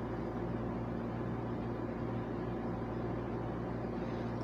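Steady low hum with an even hiss: constant background machine noise.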